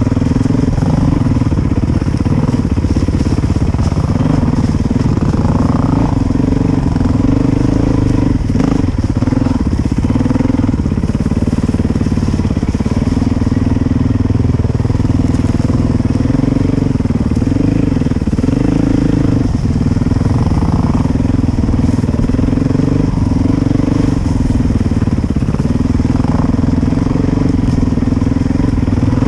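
Dirt bike engine running along a woodland trail, its revs dipping briefly every few seconds as the throttle is rolled off and back on, with a few knocks from the bike over the ground. Heard from a helmet-mounted camera.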